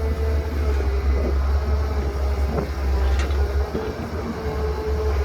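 Heavy diesel construction machinery running steadily: a deep engine rumble with a steady whine above it, and a few sharp knocks in the second half.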